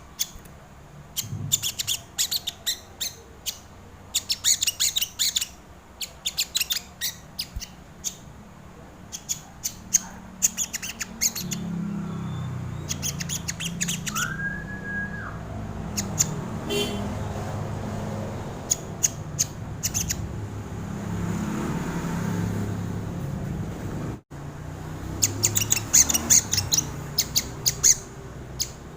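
Crimson sunbird (sogon) singing in rapid runs of sharp, very high chirps. About halfway through a steady low hum comes in underneath and the chirping thins out, then picks up again in dense runs near the end.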